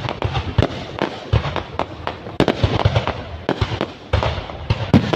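Fireworks bursting: many sharp bangs in quick, irregular succession, with crackling between them.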